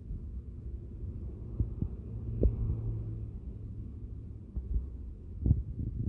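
A low steady hum with a few dull thumps, the strongest about two and a half and five and a half seconds in. No cricket chirping is heard.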